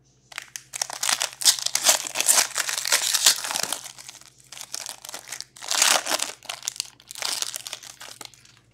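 Foil wrapper of an Upper Deck Metal Universe hockey card pack crinkling as it is opened and crumpled by hand. The crackle is dense for the first few seconds, then comes in shorter bursts about 6 and 7 seconds in.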